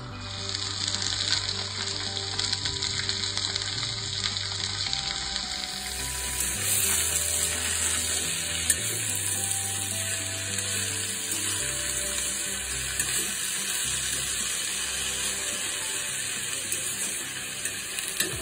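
Sliced onions and freshly added chopped mustard greens sizzling steadily in a hot kadhai as they are stirred.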